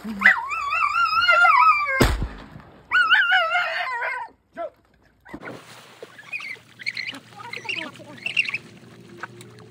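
A retriever dog whining in high, wavering tones, cut by a sharp knock about two seconds in, then whining again. After a brief break, fainter water sounds as the dog swims out.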